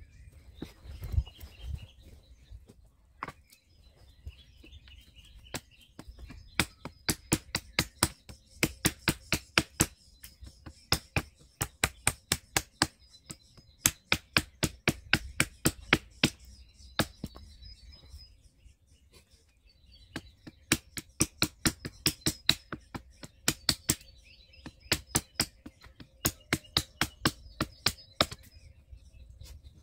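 Sharp wooden knocks, about three a second, in two long runs with a short break between, as kindling is chopped on a fallen log. Birds chirp faintly throughout.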